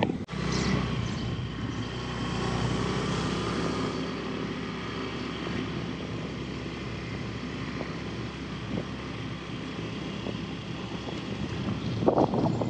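Motorbike engine running at a steady cruising speed, heard from the rider's seat: an even, low engine hum that holds its pitch.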